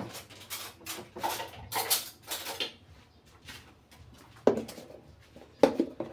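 Scratchy rustling for the first few seconds, then two knocks about a second apart as a plastic bowl of flour is set down and shifted on a granite worktop.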